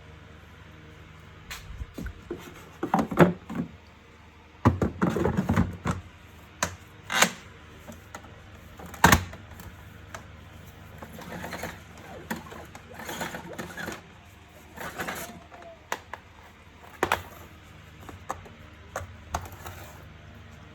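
Plastic parts of a wet & dry vacuum cleaner being handled and fitted together: irregular clicks and knocks, with a few short bursts of clatter.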